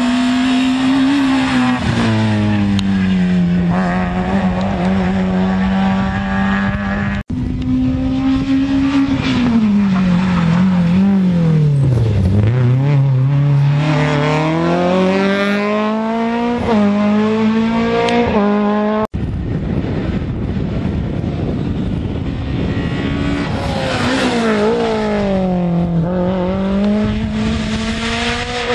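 Small rally hatchbacks driven hard one after another, a Citroën Saxo then a Peugeot 106 then a third car, their engines revving high, dropping in pitch on lifts and downshifts and climbing again through the gears. The sound jumps abruptly from one car to the next twice.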